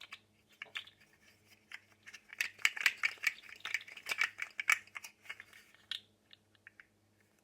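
Articulated plastic sensory slug fidget toy being wiggled, its jointed segments clicking and rattling in quick, irregular clicks that are busiest in the middle and thin out near the end.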